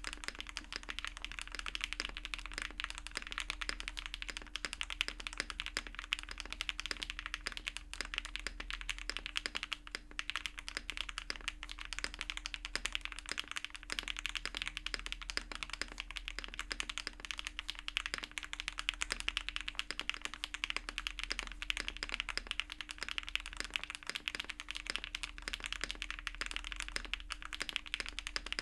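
Custom mechanical keyboard with HMX x Soulcat Poro Light linear switches being typed on continuously and quickly: a dense, even stream of keystrokes.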